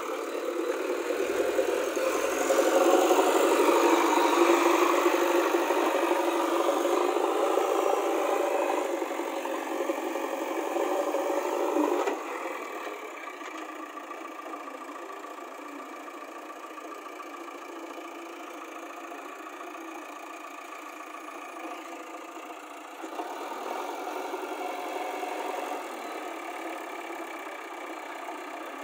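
JCB backhoe loader's diesel engine working, louder for the first twelve seconds, then dropping suddenly to a lower steady run, with a short rise again about twenty-three seconds in.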